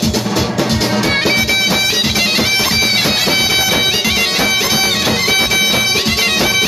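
Electronic keyboard playing a loud lead melody in a reedy, wind-instrument voice through PA speakers, held notes stepping from pitch to pitch over a programmed drum beat. The lead melody comes in about a second in.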